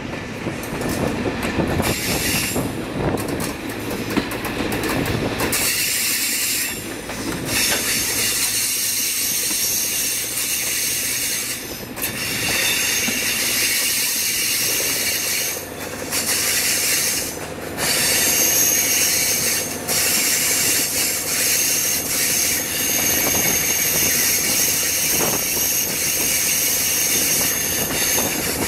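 X 2800 diesel railcar running along the line, its wheels rolling on the rails, with a high steady wheel squeal on the curves setting in about eight seconds in.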